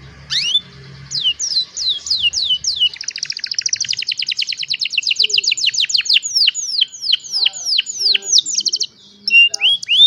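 Young domestic canary singing: a song of whistled notes that slur downward, a few slow ones first, then a fast rolling trill from about three seconds in that slows into longer sweeping notes, with a short break near the end.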